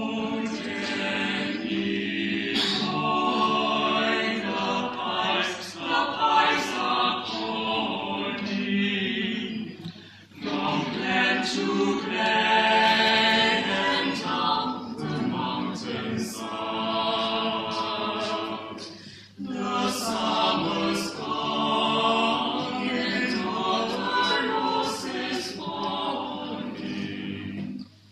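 A mixed-voice a cappella group of seven singers, sopranos, altos, tenors and basses, singing in harmony without instruments. They sing in long phrases, with short breaks about 10 and 19 seconds in.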